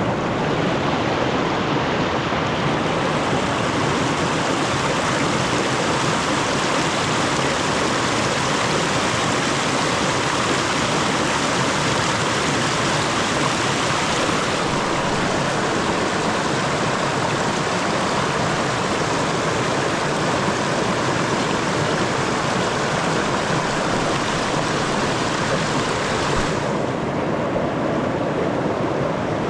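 River water rushing: a steady, loud noise. It turns brighter about two seconds in and duller again near the end.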